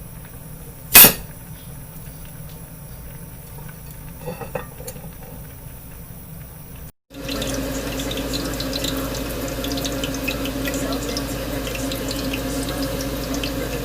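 Zucchini frying in hot oil in a pan, a steady sizzle with scattered small pops, starting after a cut about halfway through. Before that come one sharp clatter about a second in and a few light clinks.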